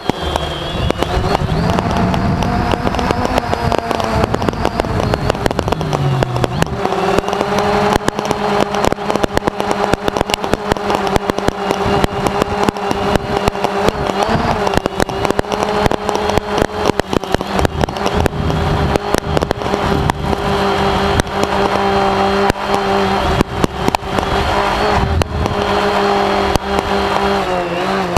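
DJI Phantom 1 quadcopter's motors and propellers running with a steady whine, the pitch dipping and settling about six seconds in and shifting again near the end as the throttle changes. Dense short crackles and pops run over it throughout.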